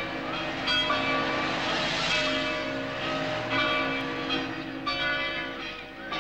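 Church bells ringing in a peal, one struck stroke after another, each ringing on.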